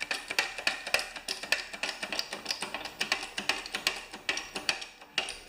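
Homemade jack press being pumped to push a tyre bead off its rim: a steady run of light metallic clicks, about three a second.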